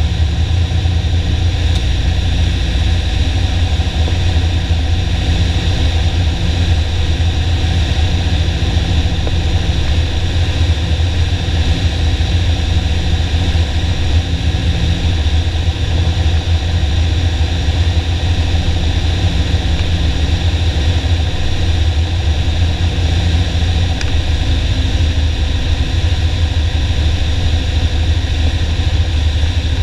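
Piper Warrior's four-cylinder Lycoming engine and propeller running steadily in flight, a loud, even low drone heard inside the cockpit.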